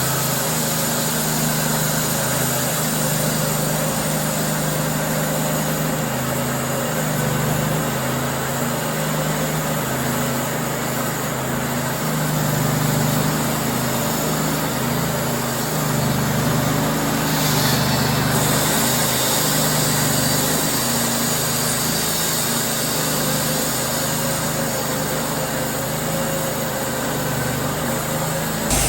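A small engine running steadily, its note wavering a little in strength.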